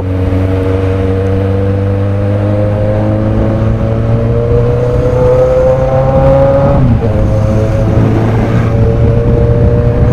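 Car engine pulling under load, its pitch climbing slowly for about seven seconds, then dropping briefly before running steady again.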